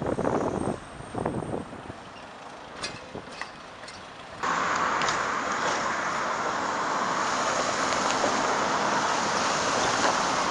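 Outdoor street noise. Gusts of wind hit the microphone in the first two seconds, then about four seconds in the sound switches abruptly to a steady, louder rushing noise, such as road traffic.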